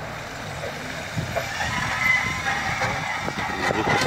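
Mitsubishi Pajero's engine pulling hard under load as the 4x4 climbs out of a flooded mud rut, its wheels churning through mud and water.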